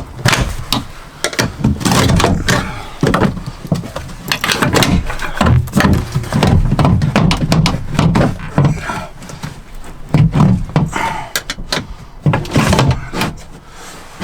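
Repeated clunks, knocks and rattles of a Land Rover Discovery 4 rear door's window regulator being unbolted and lowered down inside the door.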